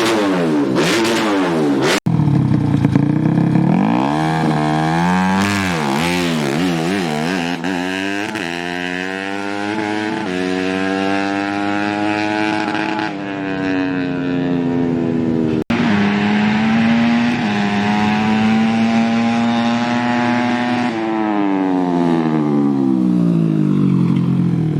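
Modified 130cc underbone motorcycle engine revving: quick blips of the throttle at first, then held at high revs for several seconds, and finally the revs falling away near the end. The sound breaks off abruptly twice, once about two seconds in and again past the middle.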